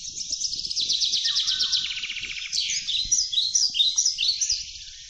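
Birds singing: a fast, high trill for about two seconds, then a run of short falling chirps that stops shortly before the end.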